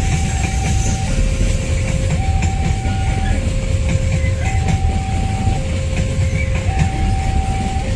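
Long freight train of open gondola wagons rolling past, a steady low rumble of wheels on rail with faint clicks from the rail joints. Over it a two-tone warning signal alternates between a higher and a lower note, each held about a second.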